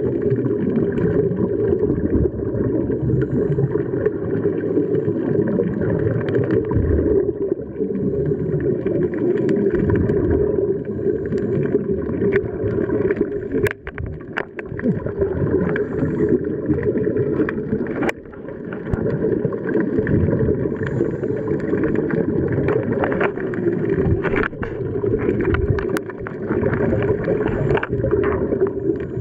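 Muffled underwater rushing and gurgling from scuba divers' regulators and exhaled bubbles, heard through an underwater camera housing. There are a few sharp clicks along the way.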